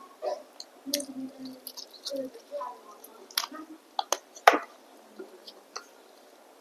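A person chewing and eating close to the microphone: wet, squishy mouth sounds, broken by several sharp clicks, the loudest about four and a half seconds in.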